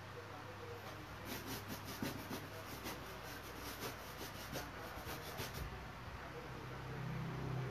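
Quick scratchy strokes of a drawing or painting tool rubbing on a canvas, several a second for about four seconds, then stopping. A low hum swells near the end.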